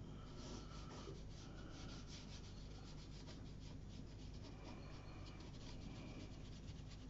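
Watercolour brush rubbing and dabbing on watercolour paper: faint, quick, repeated strokes that thin out near the end.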